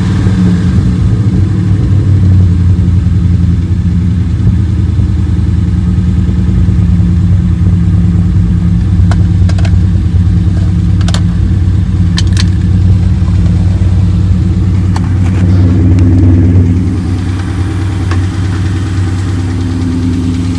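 Mark VIII 4.6-litre DOHC V8 running at a high idle just after starting, with a few sharp clicks about ten seconds in. It drops slightly in level and pitch about 17 seconds in. The engine has a lifter tick that comes and goes, which the owners put down to lifters on one head rather than rod knock.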